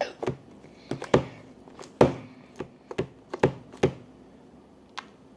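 A utensil knocking and tapping against a bowl while slime is being mixed: about ten sharp, irregular knocks, a few of them louder.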